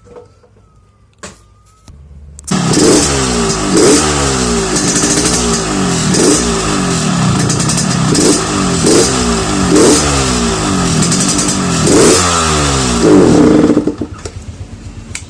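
Yamaha RX-King two-stroke single-cylinder motorcycle engine, revved in about a dozen quick blips from about two seconds in, each falling back. It runs through a stock muffler whose baffle has been drilled out to give a growling 'ngorok' exhaust note. It drops back to a quieter level near the end.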